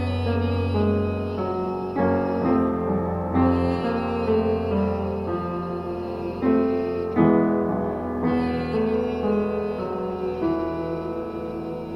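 Upright piano playing a sequence of chords and notes, with a new one struck about every one to two seconds.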